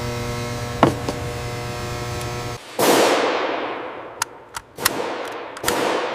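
Steady factory machine hum that cuts off abruptly, followed by a loud metallic bang with a long echoing decay, a run of sharp metallic clicks, and a second bang near the end.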